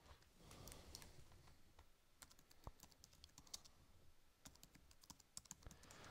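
Faint typing on a computer keyboard: a run of quick, uneven key clicks.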